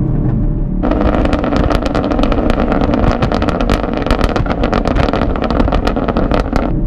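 Camaro SS's 6.2-litre V8 through a Corsa cat-back exhaust. About a second in it goes suddenly loud, with a rapid string of sharp crackles, then falls back to a low drone just before the end.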